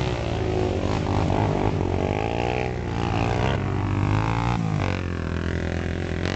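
ATV (quad) engine revving up and down under throttle while the quad spins donuts in mud. After a sudden break about four and a half seconds in, a quad engine runs on at a steadier pitch.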